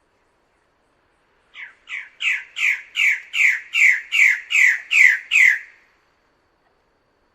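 A bird-of-paradise giving a series of about eleven loud, harsh calls, each note sliding down in pitch, about two and a half a second. The series starts about a second and a half in, builds in loudness over the first few notes and stops about six seconds in.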